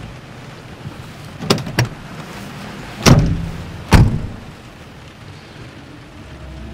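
Car door latches clicking open, then two car doors slammed shut about a second apart over a steady background hiss.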